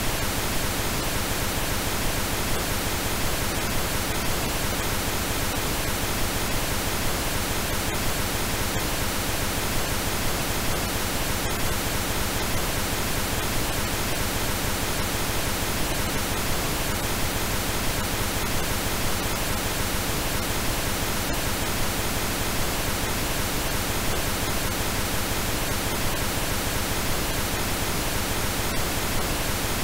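Steady synthesized pink noise, a continuous even hiss that does not change.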